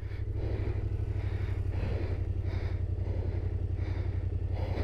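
Yamaha Ténéré 700's parallel-twin engine running steadily at low revs as the motorcycle rolls slowly downhill, with the tyres crunching over loose gravel.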